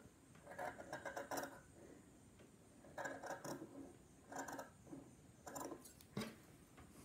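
Scissors snipping through wool fabric in about four short runs of quick cuts, with pauses between them, and a single sharp click near the end.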